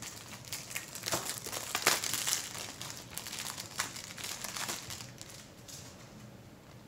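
Cellophane shrink wrap being peeled off a Blu-ray case and crumpled in the hand: a dense, crackling crinkle, loudest about two seconds in, dying away after about five seconds.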